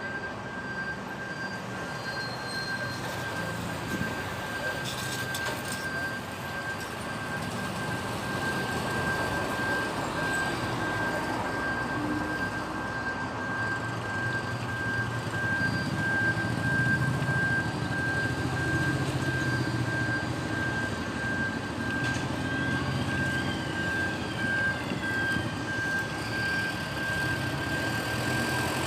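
City street traffic: a steady rumble of vehicles moving and passing, with a thin high tone held throughout.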